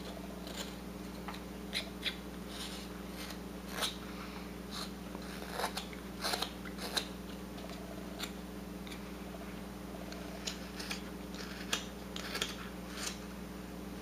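A whittling knife paring thin chips off a small wooden bird carving: short crisp scraping cuts at an uneven pace, roughly one or two a second, over a steady faint hum.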